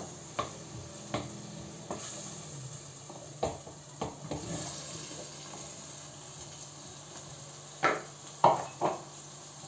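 Okra being scraped from a bowl with a wooden spoon into a pot of meat, onion, tomato paste and chickpeas frying in oil, over a steady sizzle. Light knocks of spoon and bowl on the pot's rim run through the first half, and three louder clatters come near the end.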